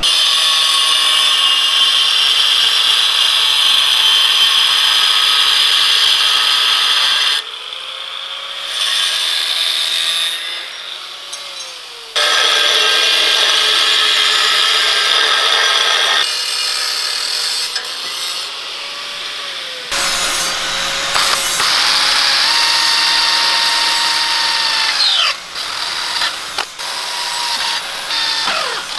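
Angle grinder with a cutoff disc cutting sheet steel in long runs of several seconds, with quieter gaps between cuts. Near the end a cordless drill bores through the steel of a welded battery box and winds down.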